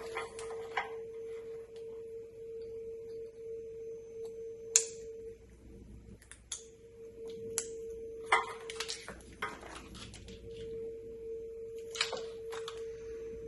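Scattered clicks and short rustles of wiring and plastic electrical connectors being handled, over a steady hum that drops out briefly twice.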